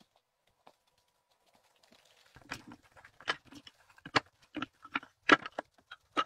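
Boots crunching and thudding on snow and frozen ground: a run of about nine sharp steps or stomps starting a couple of seconds in, roughly two a second, the loudest a little past the middle.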